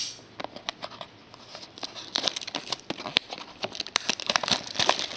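Crinkling and crackling of a trading-card box's plastic wrapping and packaging being handled and opened: irregular small clicks, sparse at first and busier from about two seconds in.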